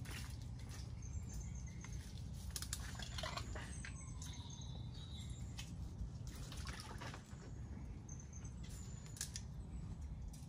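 Scattered clicks and wet crackles over a steady low rumble, with short high bird chirps now and then.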